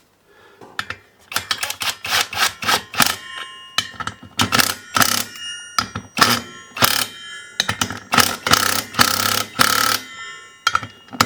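Wrench tightening the bolt on a brush-cutter clutch: irregular metallic clicks and clinks with a ringing after them, thickening into a denser rattling stretch about two-thirds of the way through.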